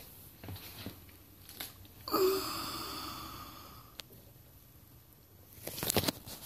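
A single metallic ring about two seconds in, a few steady tones fading away over about two seconds. Near the end come knocks and rustling from the camera being handled and picked up.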